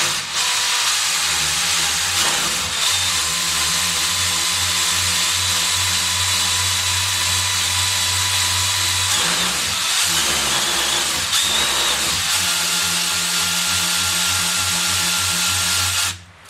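Portable drill spinning a rubber-cone sanding disc against the top edge of a cylinder bore in a Willys L134 engine block, cutting the chamfer. It runs steadily, its note breaks for a few seconds around the middle, then it steadies again and stops just before the end.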